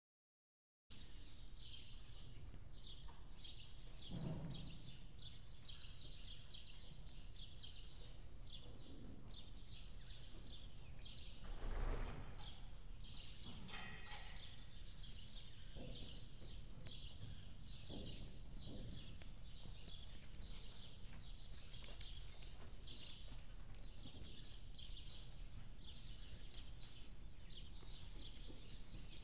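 Riding-arena ambience beginning about a second in: a steady hiss with a continual string of short high chirps, and a few dull thumps, the loudest about twelve seconds in.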